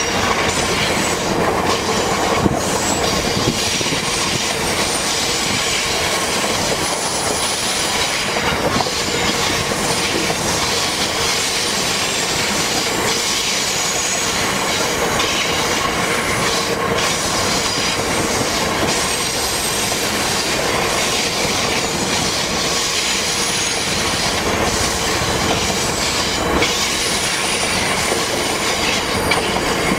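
VIA Rail passenger train of stainless-steel Budd cars rolling past on a curve: a steady rumble and rattle of wheels over the track, with a thin squeal from the wheels on the curve.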